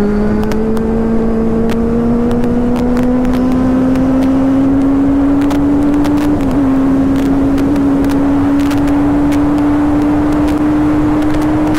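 Motorcycle engine running under steady throttle at road speed, its pitch slowly rising, then briefly dipping about six and a half seconds in as the rider changes up a gear, before holding nearly level. Wind rushes over the microphone.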